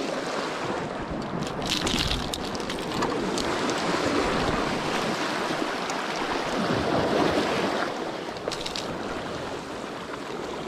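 Sea washing over shore rocks, a steady rushing wash that swells and eases, with wind on the microphone and a few brief crackles about two seconds in and again after eight seconds.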